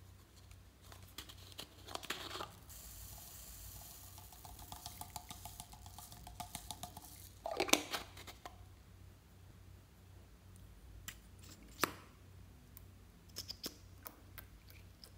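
Small plastic container of foam beads being handled and emptied. A few plastic clicks are followed by a long pattering hiss as the beads stream out onto the slime. A sharp plastic knock comes about eight seconds in, and light clicks follow.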